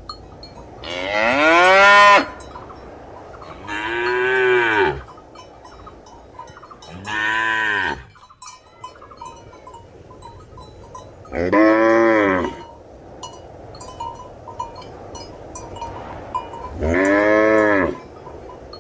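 Cattle mooing: five separate moos a few seconds apart, each about a second long, rising and then falling in pitch.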